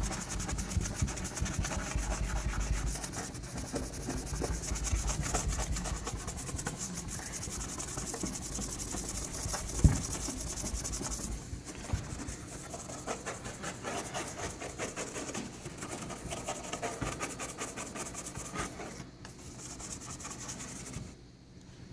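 Baking soda and water paste being rubbed by hand over car paint to scrub off a paint scuff, a steady scratchy rubbing that grows lighter about halfway through. A single sharp knock comes just before it lightens.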